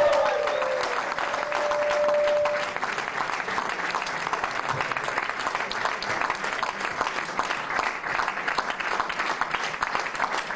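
Crowd applauding, a dense steady clatter of many hands clapping, with one voice holding a long cheer over it for the first few seconds.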